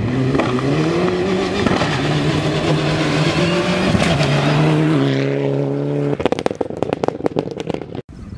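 Rally car engine at high revs on a gravel stage. The note rises over the first second and is held high, then runs steadier from about five seconds in. Just after six seconds the engine stops and a run of sharp clicks follows, ending in an abrupt cut near the end.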